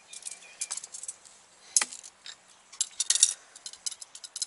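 Light metallic clicks and clinks as a steel brake hard line and a handheld tube bender are handled and the bender is fitted onto the line, with one sharper click about two seconds in and a quick flurry of clinks a little after three seconds.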